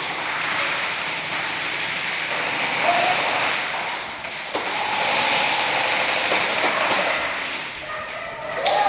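Airsoft guns firing during a game in a large indoor arena: a steady noisy clatter of rapid fire and hits, with faint voices and a few sharp clicks.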